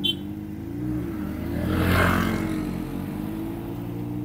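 Honda CBR600RR inline-four engine idling steadily, with a louder swell that rises and falls about two seconds in.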